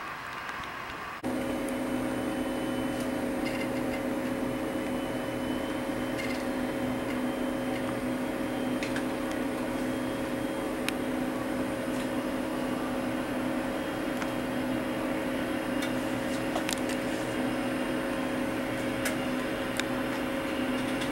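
Steady mechanical hum from a fan or motor, starting abruptly about a second in, with a few faint clicks.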